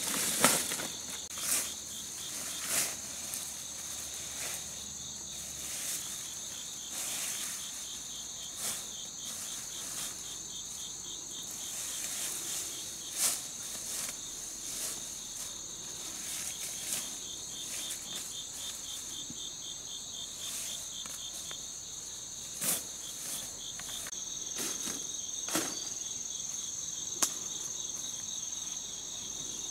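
A steady high-pitched chorus of insects, one trilling with a fast pulsing beat, under intermittent rustles and crackles of palm fronds and leafy branches being handled and laid down.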